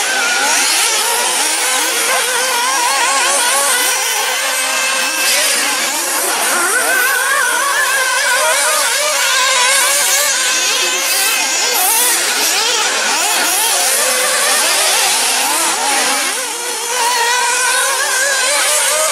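Several 1/8-scale nitro off-road RC buggies racing, their small two-stroke glow engines revving and easing off in overlapping high-pitched whines that rise and fall constantly. A brief dip about three-quarters of the way through.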